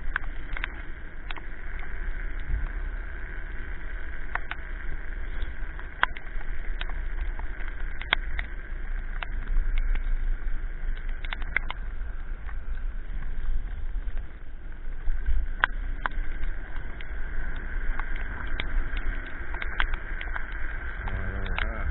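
Electric scooter ride in the rain heard from a scooter-mounted camera: steady wind and tyre rumble with a steady whine running through it, and scattered sharp ticks of raindrops striking the camera.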